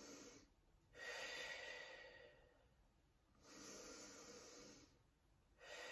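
A woman breathing slowly and deeply in a Pilates rib-cage breathing exercise. The breaths are faint and each lasts a second or two, with short pauses between them; the loudest comes about a second in.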